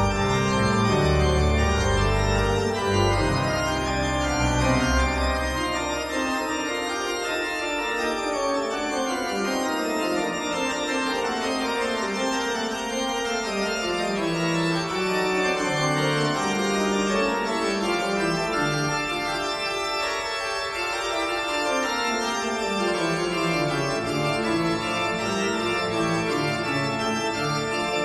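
Background instrumental music with sustained keyboard notes; a low bass part drops out about six seconds in, and a melody then steps downward.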